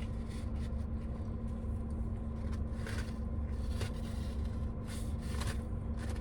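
Quiet eating sounds, a few soft crunches and rustles of food packaging, over a steady low hum.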